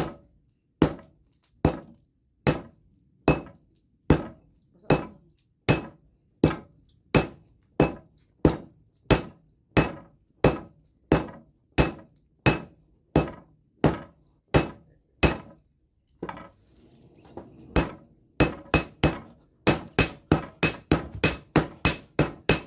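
Sledgehammer blows on red-hot steel cut from a hardened crusher blade, held on a small anvil, each blow a sharp clang with a brief metallic ring. The blows come steadily about one and a half a second, stop for a moment about two thirds of the way through, then resume faster, about three a second.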